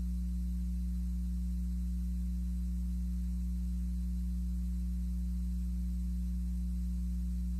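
Steady electrical mains hum, a low unchanging buzz with a faint hiss over it, picked up on the line of a plugged-in microphone that has been left lying unused.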